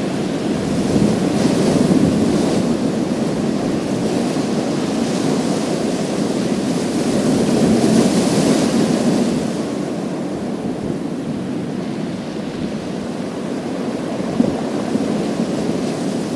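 Surf washing onto a pebble beach, swelling twice, about 2 s and 8 s in, with a bright hiss of water running over the stones, then easing off after about 10 s.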